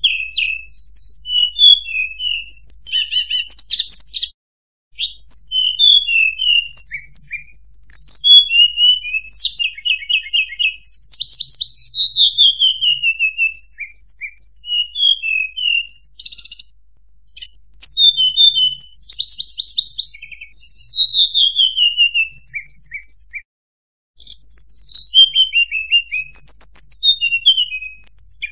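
Recorded song of a tledekan gunung (hill blue flycatcher), played as a lure call: phrase after phrase of quick, high whistled notes and falling trills. There are short breaks about four seconds in, near the middle and about two-thirds through.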